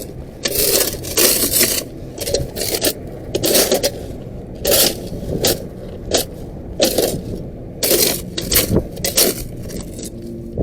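Steel shovel scraping up dry, hardened mud: a dozen or so short, grating scrapes in an uneven rhythm.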